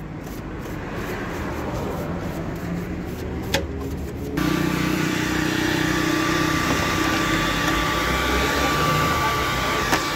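A paintbrush scrubbing dust off the amplifier's metal chassis, then about four seconds in a handheld electric blower switches on suddenly and runs steadily with a constant whine, blowing the dust out.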